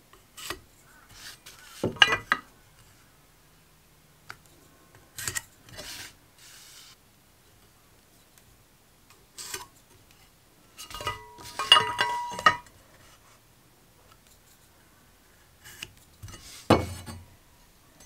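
Hand-tool handling: a metal speed square and a length of timber knocking and clinking as they are set against each other, with short pencil scratches while marking the wood. A ringing metal clink comes about two-thirds of the way through, and a heavier knock of wood follows near the end.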